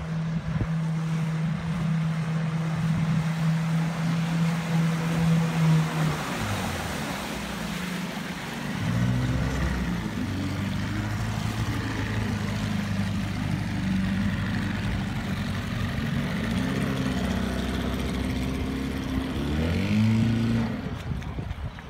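Small outboard motor on a small boat running. It holds a steady pitched hum for about six seconds, dips briefly, then runs again with its pitch shifting as the throttle changes. The pitch rises near the end as the boat pulls away.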